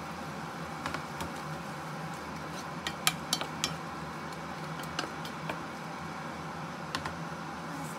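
Wooden spatula knocking and scraping against a non-stick frying pan while glass noodles, shrimp and green beans are stirred. There are scattered sharp knocks, clustered around the middle, over a steady background hiss.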